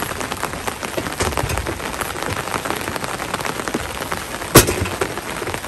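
Steady rain falling, with many fine drops ticking on an umbrella close overhead. One sharp knock stands out about three quarters of the way through, the loudest sound here.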